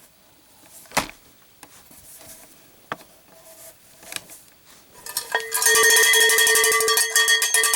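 A few scattered clicks, then about five seconds in a cowbell starts being struck in a fast, steady rhythm, ringing at a fixed pitch.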